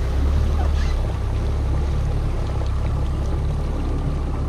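A boat's engine idling, a steady low rumble.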